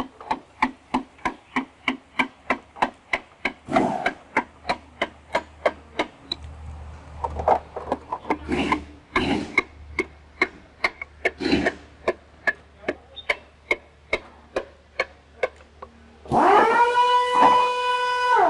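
Even ticking, about three clicks a second, with several short wavering calls over it and a loud, long held call near the end.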